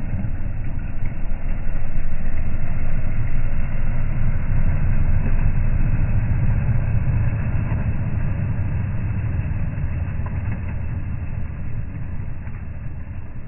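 Toyota Land Cruiser 100-series engine running with a low, steady rumble as the SUV crawls over rocks and mud, fading slightly near the end.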